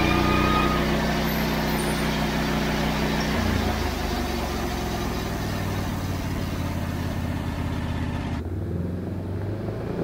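Wood-Mizer LX150 portable sawmill's engine running steadily, its note shifting about three and a half seconds in.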